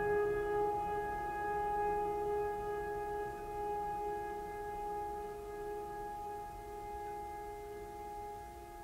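Background music: a held, sustained tone with several steady overtones, like a drone or singing-bowl pad, slowly fading.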